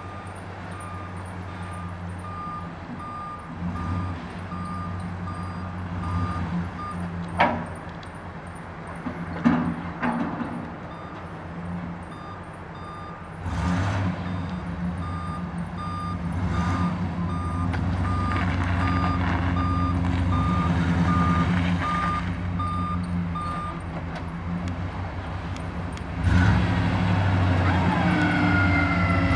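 Ford F-250 Super Duty dump truck engine running while the truck maneuvers, its backup alarm giving steady evenly spaced beeps for the first seven seconds and again from about twelve to twenty-four seconds in. A few sharp knocks come about seven to ten seconds in, and the engine note rises twice, near the middle and near the end.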